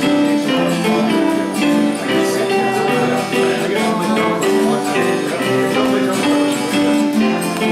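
A band playing an instrumental stretch of a song: guitars holding and changing chords over a steady beat with jingling percussion.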